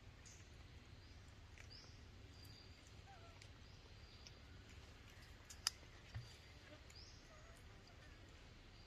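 Near silence: faint outdoor background with a low hum and a few faint bird chirps. A single sharp click comes a little past halfway, followed by a soft thump.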